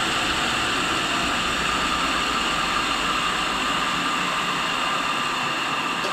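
Tool and cutter grinder running, with the cutoff wheel spinning free and the motorized work head turning the chuck: a steady motor whine and hum over a hiss, with no cut being made.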